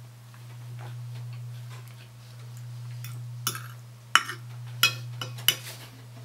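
Metal knife and fork clinking against a plate: a handful of short, sharp clinks in the second half, the loudest just past the middle, over a steady low hum.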